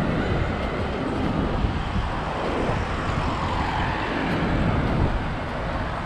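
Cars passing on the road alongside: tyre and engine noise that swells as a car goes by midway, over a steady low rumble.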